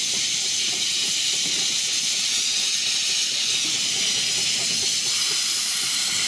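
Small narrow-gauge steam locomotive hissing steam steadily. About five seconds in the hiss broadens as the engine starts to move off with its cylinder drain cocks blowing steam.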